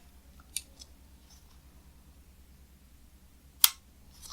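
Spring-loaded bolt of a Nitecore NTP31 aluminium bolt-action pen being worked and snapping back towards centre. There is a light click about half a second in, a fainter one just after, and a single sharp, louder metallic click near the end.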